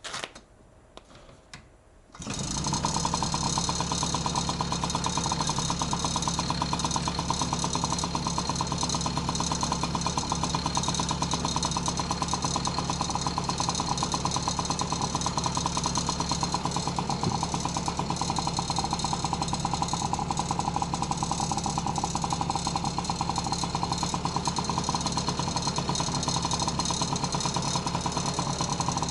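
Honda Motocompo NCZ50's 49 cc two-stroke single-cylinder engine catching about two seconds in, after a few faint clicks, then idling steadily.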